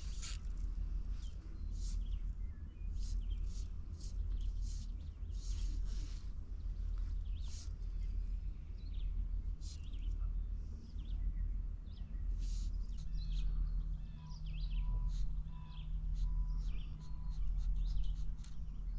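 Open-air lake ambience: a steady low rumble with frequent short clicks and small splashes, and a few faint bird chirps. About three-quarters of the way through, a short run of five evenly spaced high notes.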